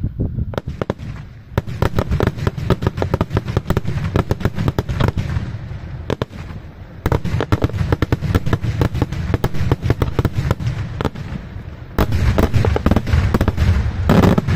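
Daytime fireworks display: rapid, dense volleys of bangs from shells bursting into coloured smoke, with short lulls about six and eleven seconds in and the heaviest barrage in the last couple of seconds.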